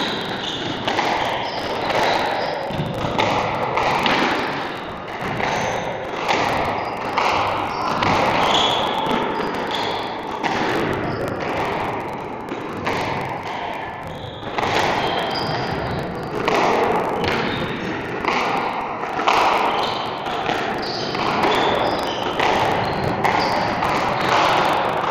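Squash rally: the rubber ball struck by rackets and smacking the walls again and again in quick, irregular succession, with short high squeaks scattered among the hits.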